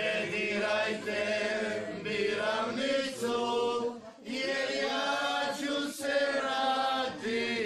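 A group of voices singing together without instruments, in held phrases with a short break about four seconds in.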